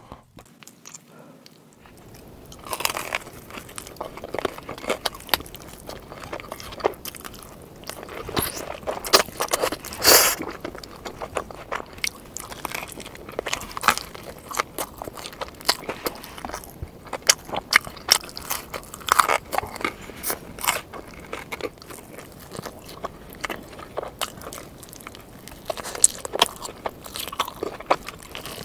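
Close-miked eating of pepperoni pizza: irregular crunchy bites into the crust and wet, crackly chewing. The sounds start about two seconds in.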